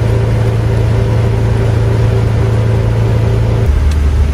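Mercedes OM616 four-cylinder diesel of a motorhome droning steadily while driving on the motorway. About three and a half seconds in, its pitch drops to a lower note.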